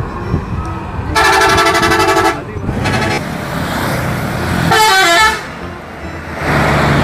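Multi-tone musical horn of an Indonesian tour coach (a 'telolet' horn) sounding twice: a loud, fast-pulsing chord about a second in, then a short melody of stepping notes near five seconds. Road and traffic noise runs underneath.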